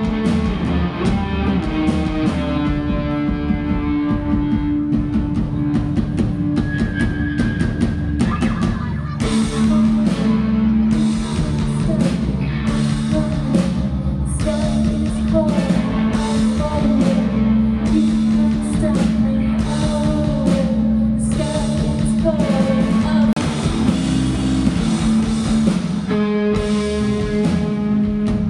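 A live rock band playing: drum kit, guitar and bass, with singing through the middle.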